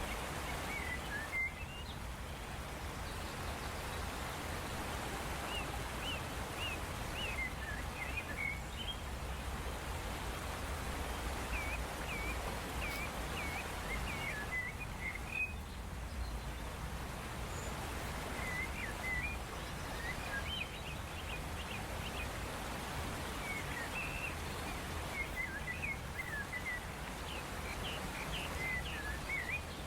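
Small birds chirping in scattered bursts of short, quick calls over a steady hiss of outdoor background noise.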